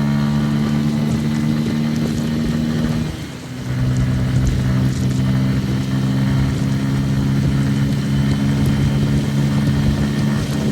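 Motorcycle engine running steadily under way. About three seconds in it briefly drops off, as for a gear change, then pulls again at a slightly lower pitch.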